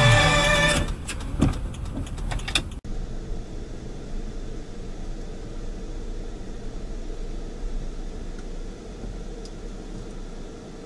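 Steady engine and road noise inside a moving car, picked up by a dashcam.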